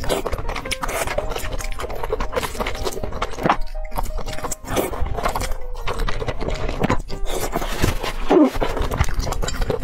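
Close-up eating sounds: wet slurps, smacks and chewing of wide, sauce-coated flat noodles, over soft background music.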